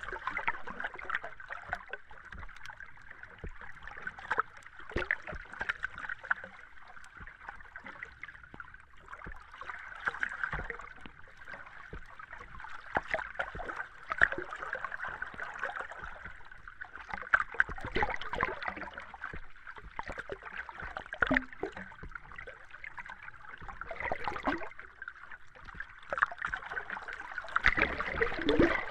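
Underwater ambience: a steady bubbling and gurgling wash, dotted with many small irregular pops and clicks. It swells into louder spells every few seconds.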